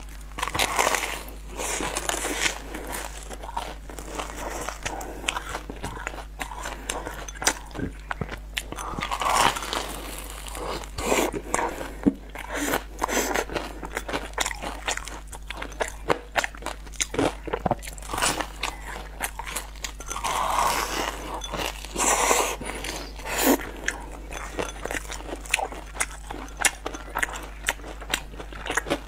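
Close-up eating sounds of a sugar-coated twisted doughnut: crunchy bites of the crust and chewing, in irregular crackly bursts.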